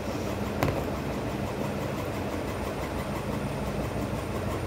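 A steady low hum over a broad background noise, with a single sharp click about half a second in.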